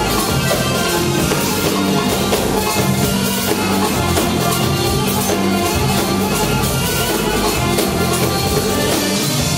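Live Arabic dance music played by a small band of guitars and electronic keyboards, steady and continuous.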